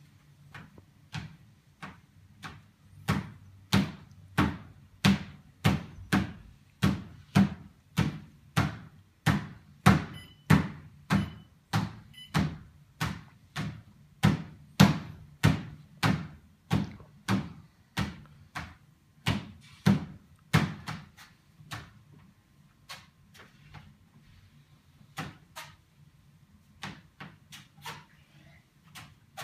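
A toddler's bare feet thudding on the belt of a Sole treadmill, about two footfalls a second, over the steady low hum of the running treadmill. The steps are soft at first, loud through most of the stretch, and turn to light taps for the last several seconds.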